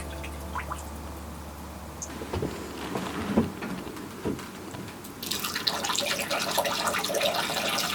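Coolant from a PC water-cooling loop pouring and splashing out, starting suddenly about five seconds in, after a few light knocks and a sharp click.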